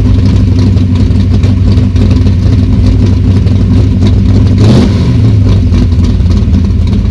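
World Products 427 small-block V8 in a 1969 Camaro, through a custom 3-inch exhaust with the electric cutouts open, running loud and steady as heard from inside the cabin. It gives one short rev blip about five seconds in.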